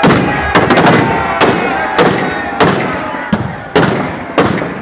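Firecrackers packed inside a burning Dussehra effigy going off in a rapid, uneven string of loud bangs, about two to three a second, with crowd voices underneath.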